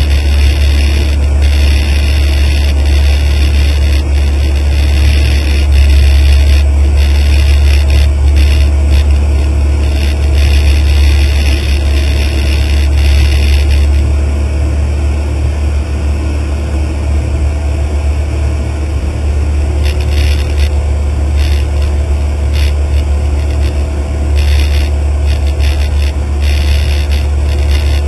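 Cessna 152's Lycoming O-235 four-cylinder engine and propeller droning steadily in flight, heard from inside the cabin. The higher hiss eases a little about halfway through, then comes back near the end.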